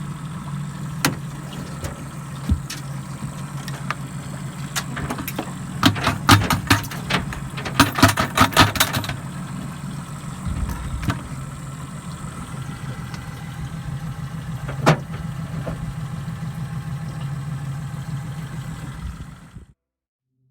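An engine idling steadily, with scattered knocks and a run of rattling clatter about six to nine seconds in. The sound stops abruptly near the end.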